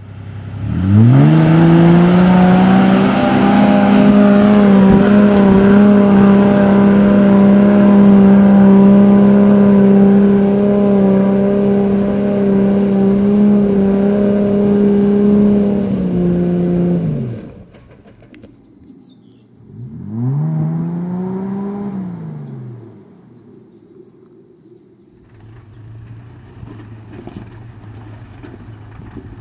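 Toyota Landcruiser 80 series engine revving up in the first second and held at high revs under load on a steep, slippery hill climb for about sixteen seconds, then dropping away. A second, shorter rev rises and falls a few seconds later. The engine then settles to a quieter, low, steady running near the end.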